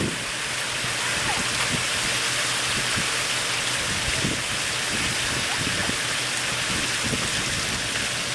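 Water pouring and splashing steadily out of the open door of a flooded 4x4 into the muddy pool below, a continuous splashing hiss.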